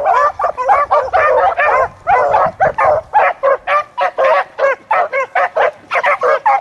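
A pack of beagles giving tongue on a rabbit's track, several hounds baying over one another. From about two seconds in, the cries break into quick, separate chops, several a second.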